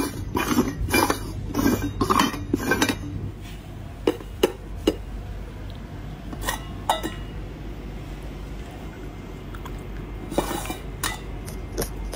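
Stainless steel dog bowls being shuffled and knocked together on a tiled floor: a quick run of scrapes and knocks for the first few seconds, then single sharp clinks now and then, over a low steady hum.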